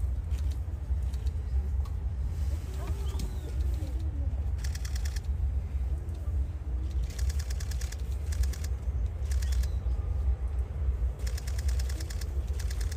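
Five short bursts of rapid clicking, each under a second long, over a steady low rumble and faint distant voices.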